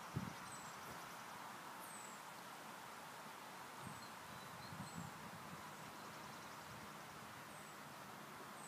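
Faint outdoor ambience: a small bird's short, high, falling chirps every second or two over a steady hiss, with a few soft low thumps.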